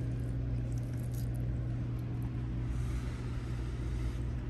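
A steady low hum of background noise, with a few faint light clicks about a second in, as a plastic fork works into a plate of vegetables.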